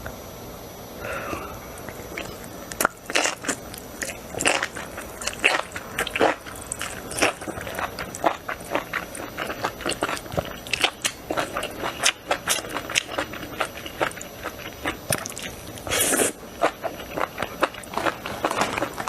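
Close-miked chewing and biting of spicy enoki mushrooms: a run of short, irregular crisp crunches and wet mouth clicks, with a louder, denser burst of chewing about 16 seconds in.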